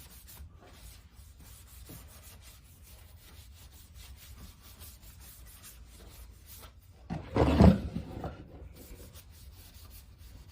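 Sanding dust being wiped off a freshly hand-sanded wooden cutting board: soft, repeated rubbing strokes. About seven seconds in, a much louder rushing burst lasts about a second.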